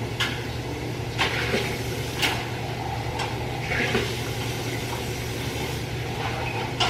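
Coffee maker brewing: a steady hum with some liquid sound, broken by a few light knocks.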